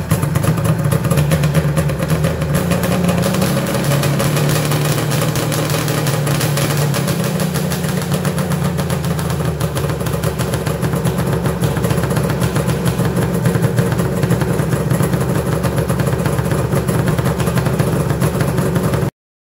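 Arctic Cat big-bore two-stroke snowmobile engine running at a fast idle just after a cold start at about 20 below zero, its pitch settling slightly lower about seven seconds in. The sound cuts off suddenly near the end.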